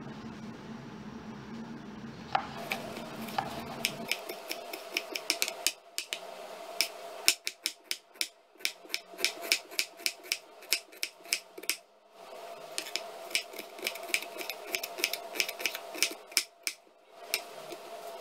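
Kitchen knife chopping a red onion on a wooden board: quick strikes of the blade on the board, several a second, starting about two seconds in and pausing briefly twice. A steady hum sits under the first four seconds.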